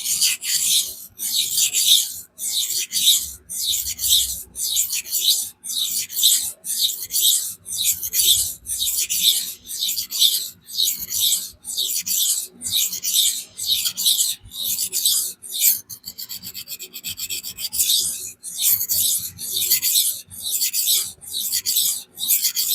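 Steel knife blade being stroked back and forth over a 400-grit vitrified diamond sharpening stone in a steady scraping rasp, about one and a half strokes a second. There is a brief run of quicker, shorter strokes about sixteen seconds in. The hard steel is being ground to take the convexity out of the factory edge.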